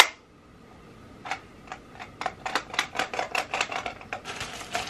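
Hard plastic clicking and rattling as the small parts of a new picture light are handled and fiddled with. A sharp snap comes at the start, then scattered clicks, then a quick run of clicks, with rustling of packaging near the end.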